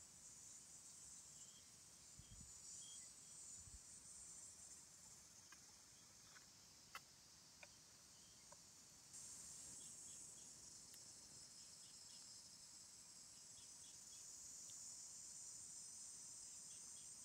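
Faint, steady high-pitched chorus of crickets or similar insects, a little louder from about halfway through, with a few faint sharp clicks near the middle.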